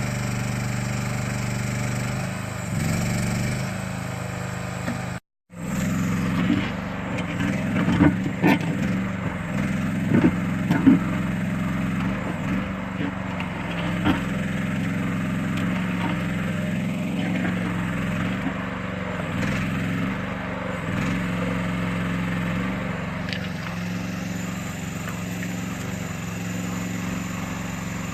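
Small engine of a towable backhoe running steadily as it works. The sound cuts out briefly about five seconds in, and a few sharp knocks come a few seconds after that.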